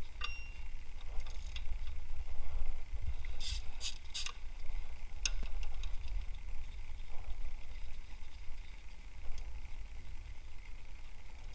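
A few sharp metallic clicks and clinks, about three and a half, four and five seconds in, from hand tools and bolts handled while the water pump bolts come out of a Toyota 2UZ-FE V8. A steady low rumble lies underneath.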